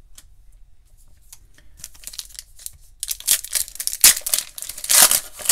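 A Panini Hoops basketball trading-card pack being torn open by hand. A few faint card clicks come first, then from about three seconds in loud crinkling and tearing of the wrapper, loudest near the end.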